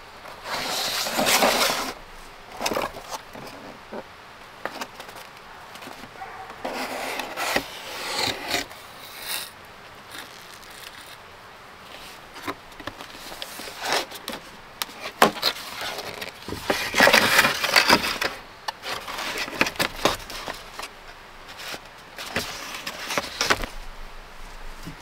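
Pizza box and pizza being handled: cardboard rubbing and scraping in several bursts, with sharp clicks between them.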